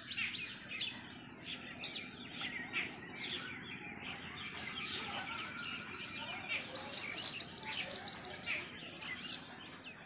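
Many small birds chirping together in a dense chorus of short, quick calls, over a low background noise.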